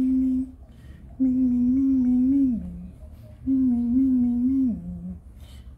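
A person humming a tune: a held note ending just after the start, then two phrases of long steady notes, each dropping in pitch at its end, with short pauses between.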